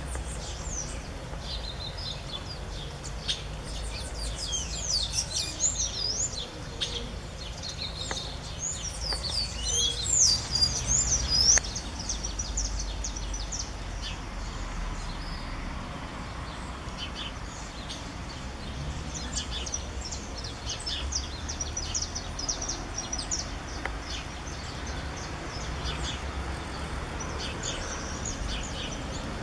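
Birds chirping and twittering in quick, high notes that sweep up and down, busiest from about four to twelve seconds in and more scattered later, over a steady low background rumble.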